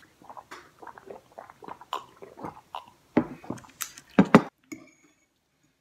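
Water gulped from drinking glasses, then the glasses set down on a wooden table with several sharp knocks about three to four and a half seconds in.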